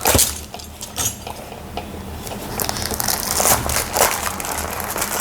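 Packaging being unwrapped by hand: irregular crinkling and rustling of plastic bubble wrap, with small clicks and knocks.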